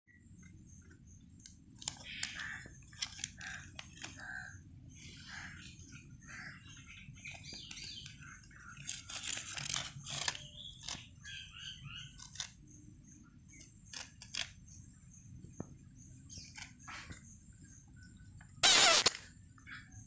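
Small birds chirping in the background, mixed with scattered clicks and rustles of a plastic biscuit wrapper as a palm squirrel tugs at it. A loud, brief burst of noise comes near the end.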